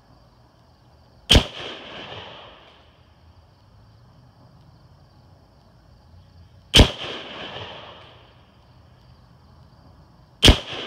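Three shots from a Ruger Gunsite Scout bolt-action rifle in .308, a few seconds apart, each followed by a short echo that fades over about a second and a half.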